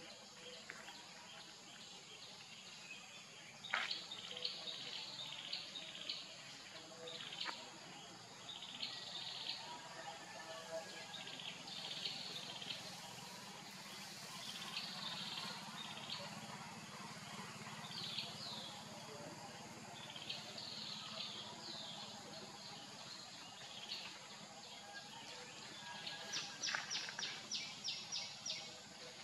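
Outdoor tree-canopy ambience: birds chirping in short high calls throughout over a steady high hiss, with a sharp click about four seconds in and a quick run of about eight chirps near the end.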